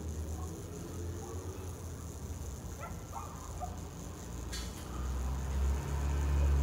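Outdoor ambience: a steady low rumble that grows louder about five seconds in, with a few faint short calls around three seconds in and a single sharp click shortly after.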